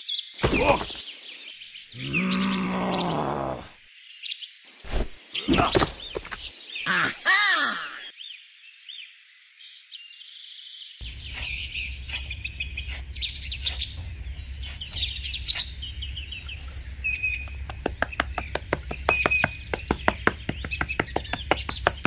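Birds chirping, with a few sharp knocks and sliding sounds in the first part. After a short gap a steady low hum comes in under the chirps, and quick clicks pick up near the end.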